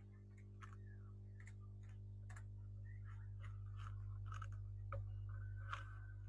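Faint, scattered clicks of computer keys being typed over a steady low electrical hum.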